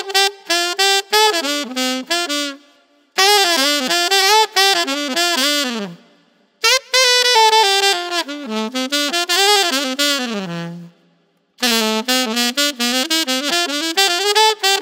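Solo alto saxophone playing a melody of bending, sliding phrases separated by three short breaks, one phrase ending on a held low note about ten seconds in. It is recorded close on a large-diaphragm condenser microphone, with compression, reverb and delay applied.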